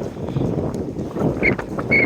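Footsteps crunching on packed snow, with short squeaks from the cold snow underfoot near the end.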